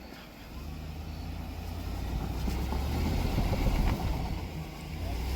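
Off-road truck engine working under load on a rutted hill climb, a low rumble that builds steadily louder over the first few seconds, dips briefly, then holds.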